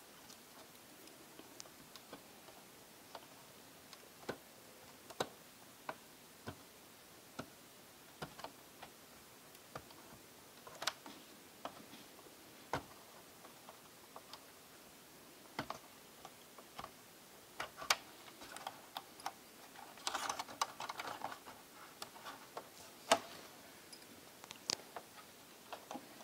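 Scattered small clicks and light taps of plastic parts and connectors as ribbon cables inside a Sony Vaio F series laptop are unlatched and handled, at irregular intervals. About twenty seconds in there is a brief cluster of quicker clicks with some rustling.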